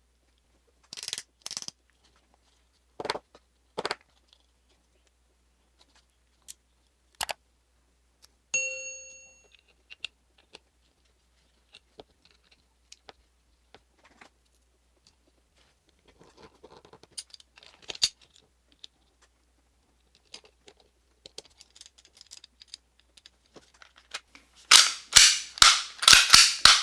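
Metal and plastic parts of a Glock 45 gas blowback airsoft pistol being handled while the nozzle is swapped: scattered sharp clicks and clacks, a short metallic ding that rings briefly about eight seconds in, and a quick run of loud clacks near the end.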